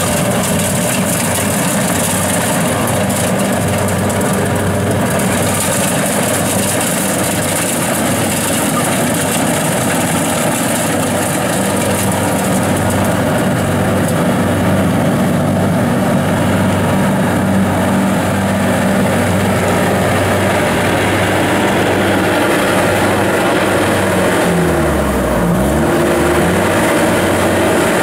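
Kubota DC60 combine harvester running steadily while cutting standing rice: a continuous engine drone with the machinery running. Near the end the engine pitch dips briefly and comes back up.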